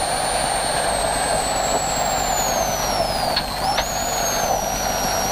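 BMW M3 rally car heard from inside the cabin, slowing for a hairpin. A high whine from the drivetrain falls steadily as the revs drop, then jumps back up after two short clicks a little past halfway as the car pulls away again.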